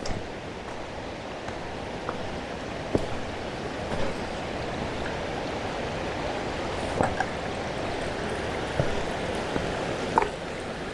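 Steady rush of river water tumbling over a waterfall, with a few faint clicks and knocks scattered through it.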